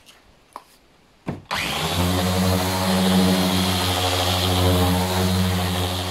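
Corded electric orbital sander switched on about one and a half seconds in, just after a knock, then running steadily with a hum as its pad sands a plywood panel.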